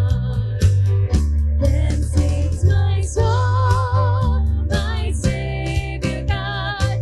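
Worship band music: a bass line and a steady drum beat under guitar, with a sustained, wavering melody line carrying the tune.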